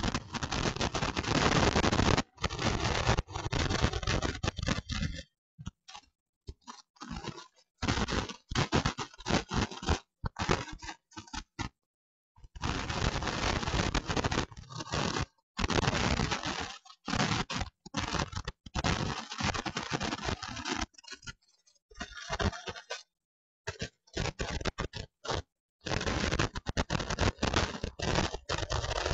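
Harsh crackling noise broken up by many abrupt dropouts to dead silence, some long and some very short. This is glitching, corrupted audio from a screen-captured live stream.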